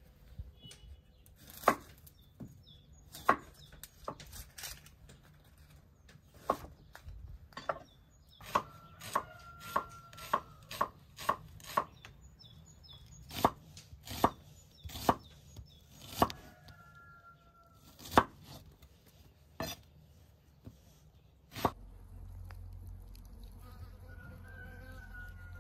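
Kitchen knife slicing onion on a wooden cutting board: sharp separate knocks of the blade hitting the board, irregular, some in quick runs of several strokes. Near the end the chopping stops and a steady low hum takes over.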